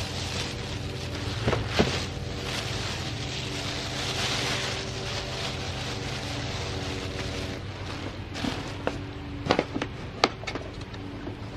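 Plastic shopping bag and bubble wrap rustling and crinkling as a home computer is wrapped in them, loudest about four seconds in, over a steady low hum. Near the end a few sharp knocks as a cardboard box is handled on the table.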